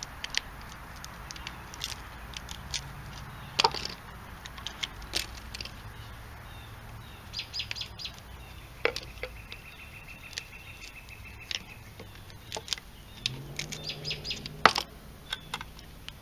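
Hand tool clicking and scraping against a steel motor stator as tight, burned copper windings are pried and pulled out of its slots, with sharp metallic clicks scattered throughout, the loudest a little past three seconds in and near the end. Birds chirp in the background.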